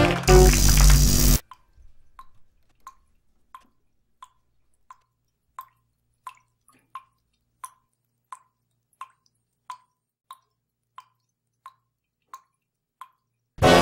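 Music ending in a loud, noisy burst that cuts off sharply about a second and a half in, then water dripping slowly and evenly from a wet hand, one small drop about every 0.7 s, some fifteen drops in all. Music comes back in right at the end.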